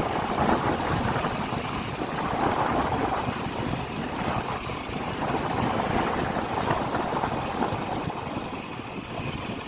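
Steady wind rush on the microphone mixed with the rumble of a vehicle moving along a rough dirt road.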